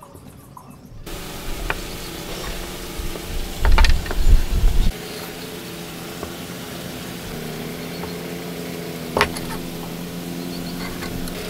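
Steady drone of a running motor, with a few sharp knocks as wooden blocks are set on a workbench. A heavy low rumble lasting about a second comes near the middle.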